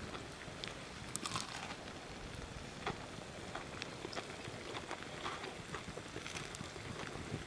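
Wood campfire crackling: irregular sharp pops and snaps over a steady low hiss.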